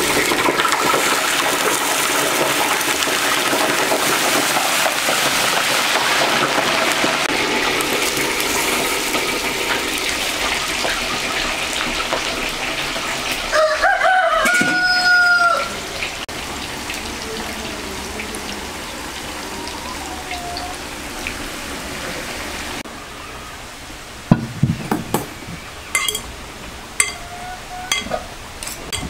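Potato sticks deep-frying in a black iron pan of oil, a dense sizzle that slowly fades; a rooster crows once about fourteen seconds in. Near the end, a fork clinks against a glass salad bowl several times as a salad is tossed.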